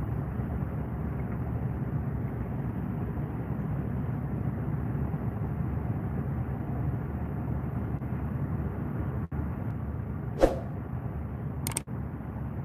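Steady low wind rumble on the microphone by the sea, with one sharp knock about ten seconds in and a few short clicks near the end.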